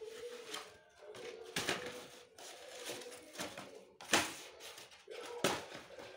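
Hands handling a plastic LCD writing tablet: a few sharp knocks and clicks of the plastic case as it is pressed and turned over, the loudest about four seconds in, over a faint steady tone.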